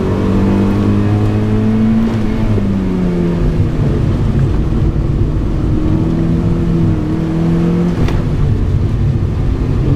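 Mazda MX-5's four-cylinder engine under load, heard from inside the cabin: the revs rise slightly, drop about two and a half seconds in, then hold steady. A single sharp click comes about eight seconds in.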